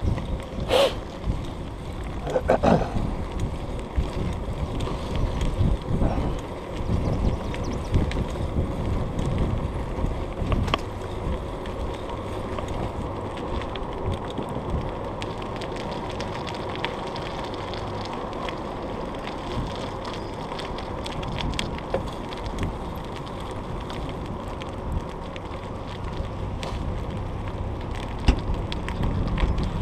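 Bicycle ridden along a rough towpath: steady tyre rumble and wind noise, with a few sharp knocks and rattles from bumps in the first seconds.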